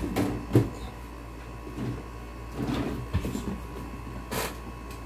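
Objects being handled on a workbench: a few clicks and knocks, the loudest about half a second in, and a short scraping rustle a little past four seconds, over a faint steady electrical hum.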